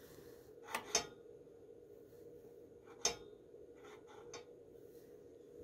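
A few light metallic clicks and taps: two close together about a second in, a sharper single one near three seconds, then several fainter ticks. They come from handling the dial indicator set against the steel table saw blade. A faint steady hum runs underneath.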